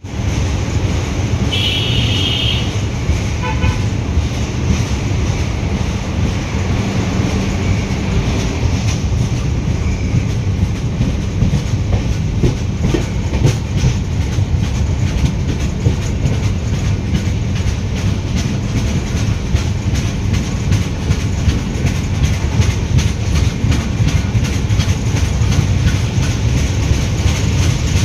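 Indian Railways LHB express train running at speed: a steady rumble of wheels on the rails with faint clickety-clack. A brief high horn toot sounds about two seconds in.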